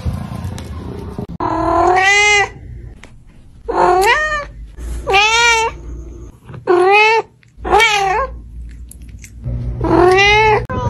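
A domestic cat meowing repeatedly: six loud, drawn-out meows in quick succession, each bending up and down in pitch.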